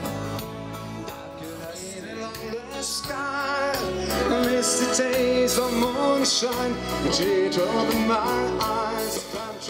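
Live band playing country-style rock on electric guitar, acoustic guitar and bass guitar, with male voices singing; the music gets louder about four seconds in.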